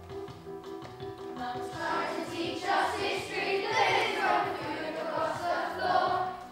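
A group of children singing together over recorded backing music; a short repeating accompaniment figure plays alone at first, and the voices come in about a second and a half in.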